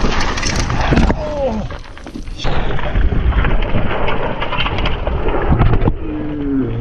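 Mountain bike going fast down a loose, dusty gravel trail, heard on an action camera with wind buffeting the microphone: tyres skidding and crunching on the dirt and the bike rattling over rocks, then a jumble of knocks as the rider crashes about six seconds in. Two short shouts, about a second and a half in and near the end.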